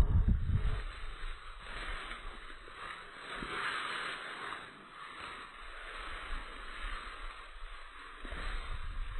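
Dry grass rustling under a Bouvier des Flandres as it rolls on its side, loudest about three to four seconds in. A short burst of low wind rumble on the microphone at the start.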